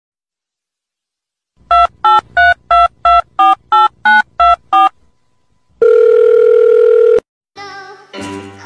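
Telephone keypad beeps: about eleven quick tones, roughly three a second, dialing a number, then one steady tone lasting about a second and a half. Music with singing starts near the end.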